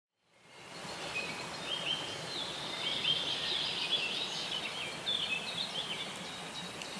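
Birds singing, many short high chirps over a steady outdoor background hiss, fading in from silence during the first second.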